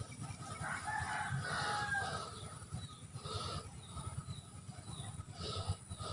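A rooster crowing once, a drawn-out call lasting about a second and a half, starting just under a second in.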